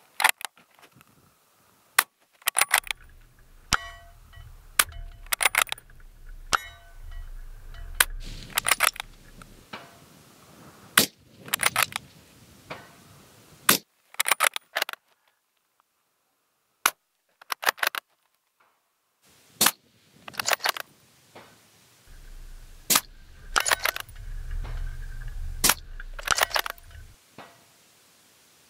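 Suppressed Accuracy International AX bolt-action rifle fired in rapid succession, a sharp shot about every three seconds, with the clack of the bolt being cycled between shots.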